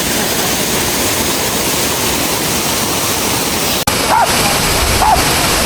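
Waterfall pouring close by, a loud, steady rush of water. About four seconds in the sound breaks off for an instant, then a few short vocal sounds ride over the rush.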